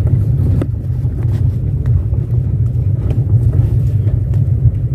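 Car driving on a gravel road, heard from inside the cabin: a steady low rumble of engine and tyres on the loose surface, with occasional light clicks.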